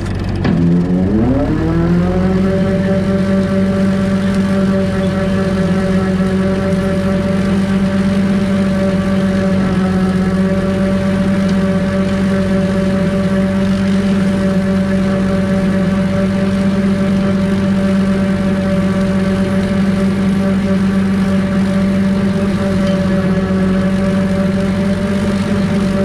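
Yanmar F235 tractor's diesel engine running at steady working revs, driving a PTO rotary mulcher through tall grass. The pitch rises over the first second or two, then holds steady.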